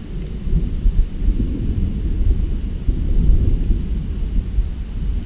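Low, gusting rumble of wind buffeting the microphone.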